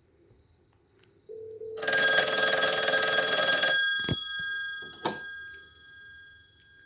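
Western Electric 554 rotary wall phone's bell ringer sounding one ring of about two seconds, its bells ringing on and fading slowly afterwards. A steady low tone starts just before the ring, and two sharp knocks come as the ringing dies away.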